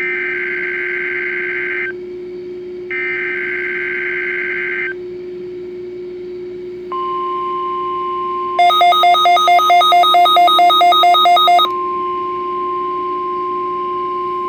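NOAA Weather Radio alert test tones. First come two bursts of the SAME digital header, a shrill two-tone data warble lasting about two seconds each. About seven seconds in, the steady 1050 Hz warning alarm tone begins; this tone switches on weather-radio receivers. For about three seconds in the middle, a loud rapid beeping sounds over the tone.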